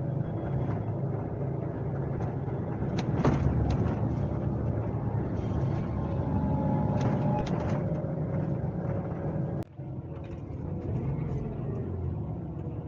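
Scania K370C coach's diesel engine running steadily under way, heard from inside the cabin with road noise and a few short rattles of the interior. The sound drops out sharply for a moment about three-quarters of the way through.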